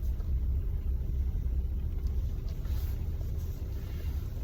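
A car's low, steady rumble heard from inside the cabin.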